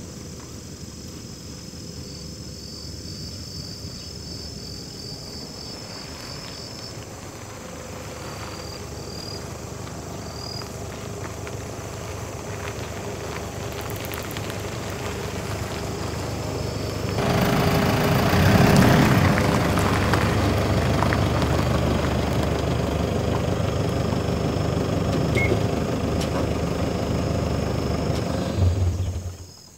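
Camper van on the move: steady engine and road noise that grows louder and jumps up about two-thirds of the way through, then cuts off suddenly. Faint high chirps can be heard over it in the first several seconds.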